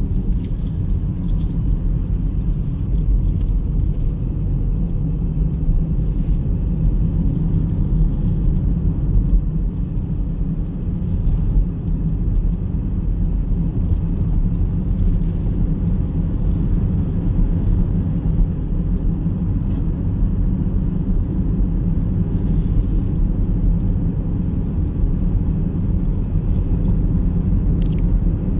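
Steady low rumble of engine and tyre noise inside a moving Chevrolet's cabin, with a single short sharp click near the end.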